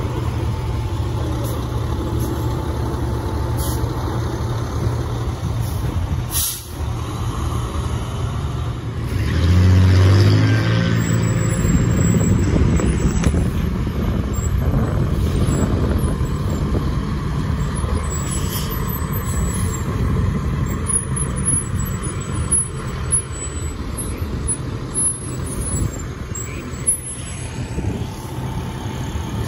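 Heavy fire truck diesel engines running as the trucks drive slowly past one after another, a steady low rumble. About ten seconds in, a louder low note sounds for a second or so.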